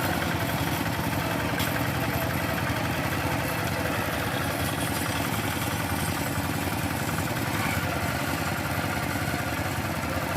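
Hand tractor engines running steadily under load while tilling a rice paddy, with a brief click about one and a half seconds in.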